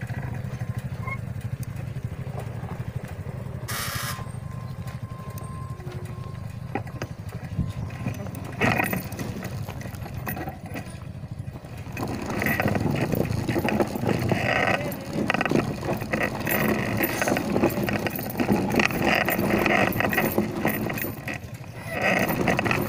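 Motorcycle engine idling with a steady low hum. About halfway through it turns louder and busier as more motorcycles come up.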